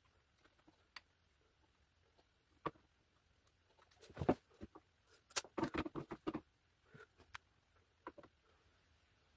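Scattered small clicks and taps of tiny screws being fitted by hand into a 3D printer's print head carriage on the gantry, with a quick run of them in the middle.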